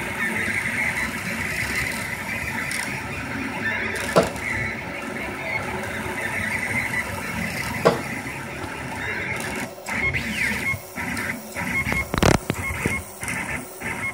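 Rostock MAX delta 3D printer running a print, its stepper motors whining steadily as the print head moves. From about ten seconds in, the whine breaks into short stop-start moves, with sharp clicks about four and eight seconds in and a louder knock about twelve seconds in.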